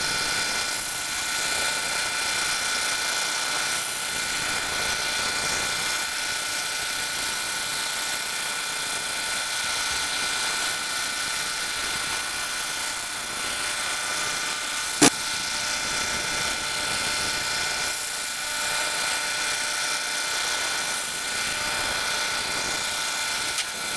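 K40 40-watt CO2 laser cutter running while it cuts: a steady whirring hiss with several steady high tones, broken once by a sharp click about fifteen seconds in.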